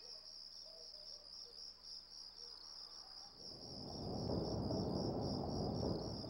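Crickets chirping in a steady, pulsing high trill, an ambience sound effect. About three and a half seconds in, a soft rushing swell rises over it and fades out near the end.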